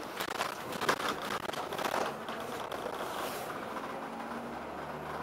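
Clicks and rattles inside the upper deck of a double-decker bus. From about three and a half seconds in they give way to a steady low engine hum.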